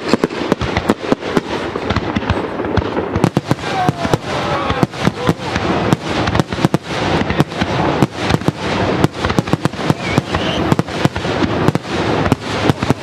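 Fireworks display: aerial shells bursting in rapid, irregular succession, several sharp bangs a second over a continuous wash of noise.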